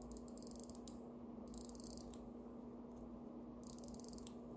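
Winding crown of a 1940s Westfield manual-wind wristwatch being turned: its click ratchet gives three short bursts of rapid, faint clicking, one turn of the crown after another.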